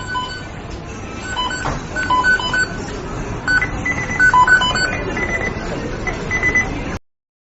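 The McDonald's kitchen beeping sound effect: many short electronic beeps at several different pitches, overlapping and repeating in quick pairs over a steady noisy background. It cuts off suddenly near the end.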